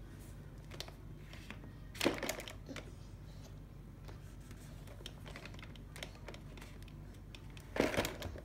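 Light knocks and taps of a small soccer ball on a wooden floor, with two louder clusters of knocks about two seconds in and near the end.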